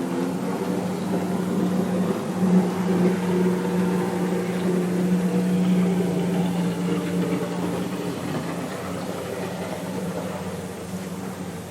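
Steady mechanical hum of a running motor, holding an even pitch, slightly louder in the first half and easing off toward the end.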